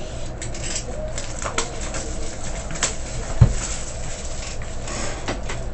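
A box of trading cards being opened and handled: rustling and crinkling packaging with scattered clicks, and one low thump about three and a half seconds in, over a steady low hum.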